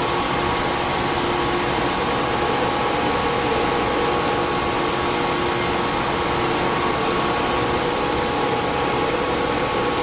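Steady drone of running grain-handling machinery: an even, blower-like rush with several steady humming tones through it.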